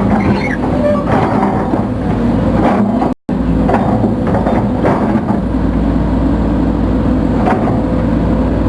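Case CX210B excavator's diesel engine running steadily under hydraulic load, its main hydraulic pump freshly rebuilt, with scattered knocks and clanks from the machine working. The sound cuts out for an instant about three seconds in.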